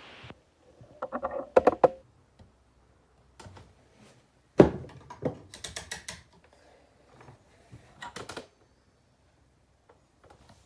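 Hard objects being handled: several bursts of clicking and clattering knocks, the loudest a single knock a little before the halfway point, with a few faint ticks near the end.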